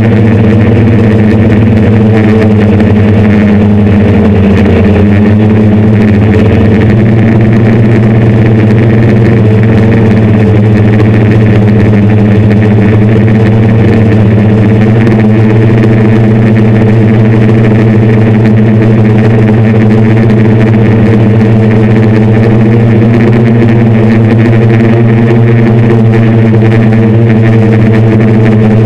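Hexacopter's six brushless motors (Turnigy NTM 750Kv) spinning 10-inch propellers, heard from the craft's onboard camera as a loud, steady drone of several stacked pitches that waver slightly as the throttle changes.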